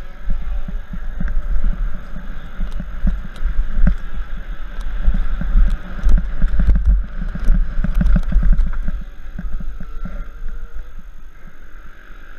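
Downhill mountain bike riding fast over a rough dirt trail: heavy wind buffeting on the microphone with frequent rattles and knocks from the bike over bumps, easing off about nine seconds in.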